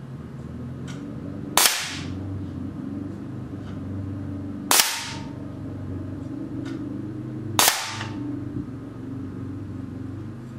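Three sharp cracks about three seconds apart: a homemade compressed-air .177 BB cannon firing steel BBs at a hanging aluminium soda can in front of a steel backstop. A brief ring follows the second and third cracks.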